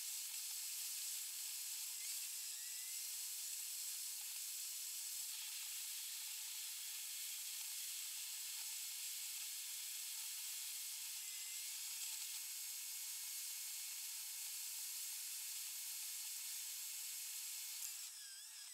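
Car driving noise sped up 36 times, heard as a steady high hiss, with all of the road and engine rumble shifted up into it. It breaks up briefly near the end.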